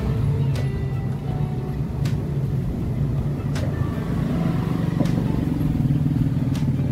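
A motor vehicle engine idling steadily, with faint clicks about every second and a half.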